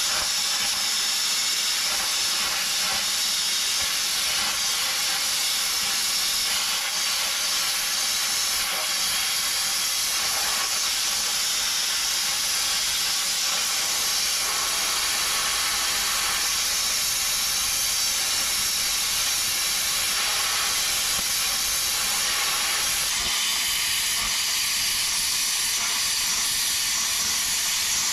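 Hypertherm plasma cutter cutting through steel square tubing: a continuous, steady hiss from the torch. The tone shifts slightly about halfway through and again near the end.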